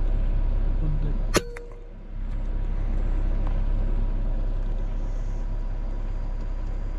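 A single air rifle shot about a second and a half in: one sharp crack with a brief ring after it, over steady background noise.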